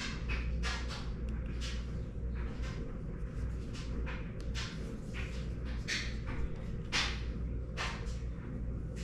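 Handling noises: short, irregular scrapes and rustles, about one or two a second, over a steady low hum.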